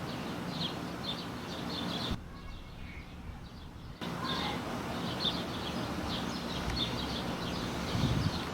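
Outdoor ambience of small birds chirping in short repeated calls over a steady low hum. Everything dips quieter for a couple of seconds about two seconds in.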